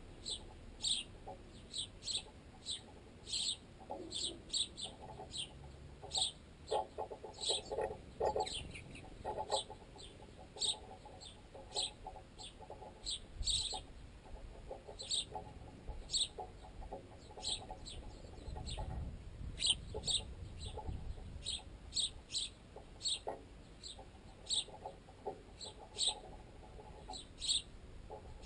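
Sparrows chirping over and over in short, high calls, about one or two a second, as the young beg at a feeding spot. Now and then there is a run of pecking knocks on bread, made unnaturally loud because it carries up the guy line into the tent pole the camera is mounted on.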